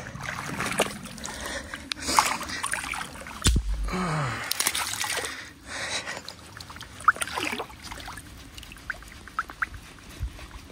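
Water splashing and trickling with scattered knocks as stakes of a fish fence are wrenched out of a river bed by hand. There is a dull thud about three and a half seconds in, followed by a short grunt of effort.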